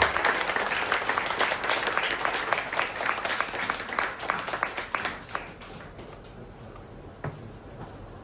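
Audience clapping, dense at first, then thinning and dying away after about five or six seconds.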